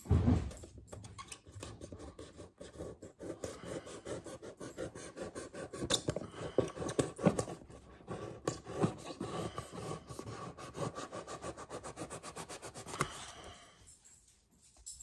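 Small utility knife scraping and cutting excess hot glue from the seams of an EVA foam top hat: a dense, irregular run of small scratching clicks. A thump right at the start.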